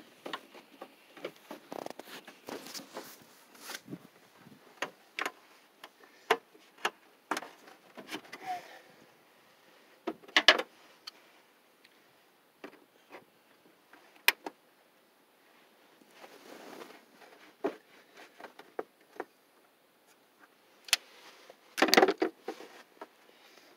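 Radiator hose being pushed onto the radiator and its spring hose clamp worked with hose-clamp pliers: scattered sharp clicks and knocks of metal tool, clamp and plastic shroud. The loudest comes about ten seconds in, with a dense cluster near the end.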